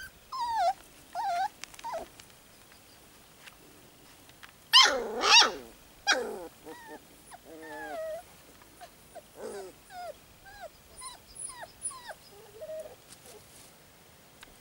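4½-week-old puppies yelping and whining: a few high calls that fall in pitch at first, two loud yelps about five seconds in, then a string of short squeaky whines and yips.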